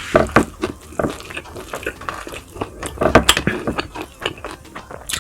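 Eating sounds: irregular clinks and scrapes of cutlery against a plate.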